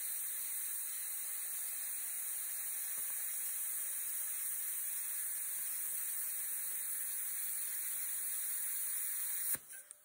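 Plasma cutter arc cutting steel plate: a steady, even hiss that cuts off near the end with a short pop and a couple of clicks.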